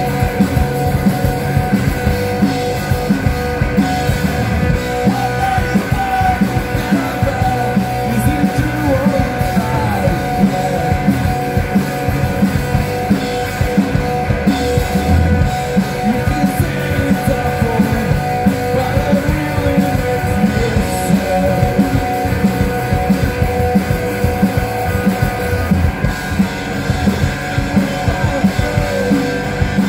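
Rock band playing live through a PA: electric guitars and a drum kit.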